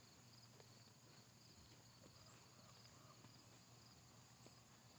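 Near silence, with faint, steady chirping of crickets and a few soft ticks.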